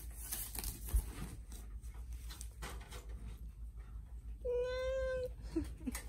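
A cat meowing: one long, level meow a little over halfway through, followed by two short, quieter chirps just before the end.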